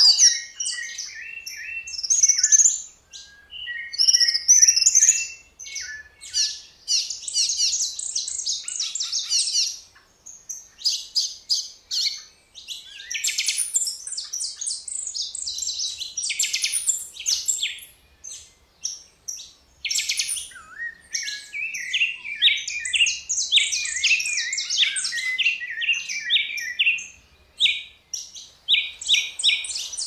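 Several Brazilian wild songbirds singing over one another: a dense run of quick chirps and rapid trilled phrases, broken by brief pauses.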